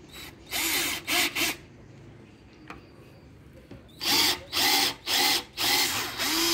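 Worx 12 V cordless drill-driver with a twist bit drilling into wardrobe board, run in short trigger bursts. A few bursts come around the first second and a close series of about five from about four seconds in, the motor pitch rising and falling with each.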